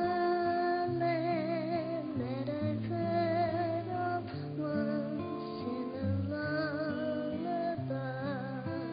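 A young girl singing a slow, gentle song into a microphone, her long held notes wavering with vibrato, over soft backing music with held low notes.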